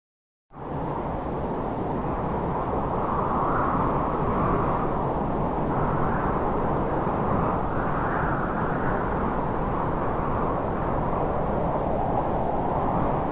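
Wind sound effect: a steady rushing wind that starts abruptly about half a second in, rising and falling in slow swells.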